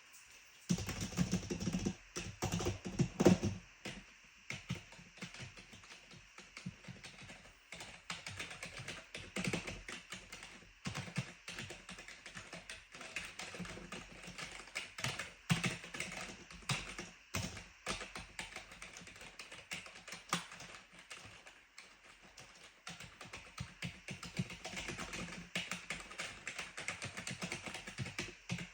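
Clicky computer keyboard being typed on in fast runs of keystrokes, with a louder flurry in the first few seconds and a few harder single key strikes later on.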